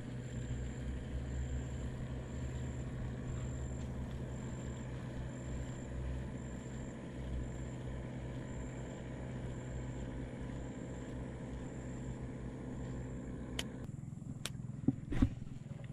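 Boat engine running steadily with a low hum. It cuts out about fourteen seconds in, and a few sharp clicks follow.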